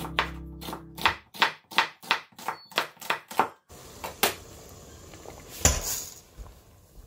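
Chef's knife slicing a red bell pepper on a wooden cutting board: quick, even chopping strokes, about three a second, that stop about three and a half seconds in. A single louder knock near the end as dry noodles are dropped into a stainless steel pot.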